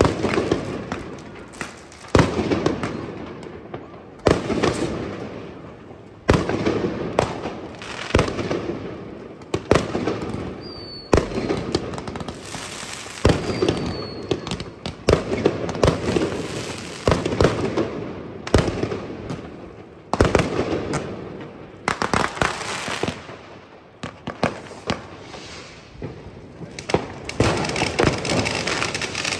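New Year's Eve consumer fireworks going off, including a firework battery firing shots. Sharp bangs come every second or two, each trailing off in a long echoing decay, and the bangs turn to dense crackling near the end.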